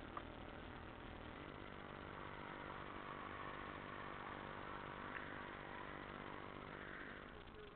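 A vehicle engine running faintly and steadily on a snowy street, swelling a little and then easing off near the end.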